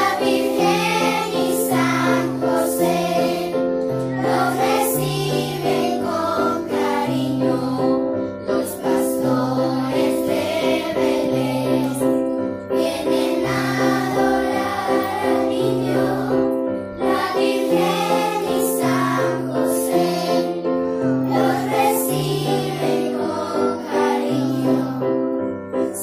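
A group of children singing together over several electronic keyboards, which play sustained chords with a bass line that changes note about once a second.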